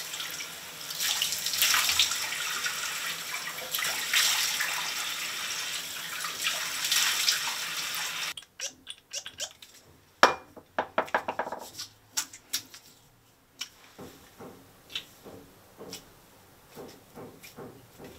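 Bathroom tap running into a washbasin with water splashing as a face is rinsed. The flow stops abruptly about eight seconds in, leaving scattered drips and splashes, then faint light taps of hands on the face.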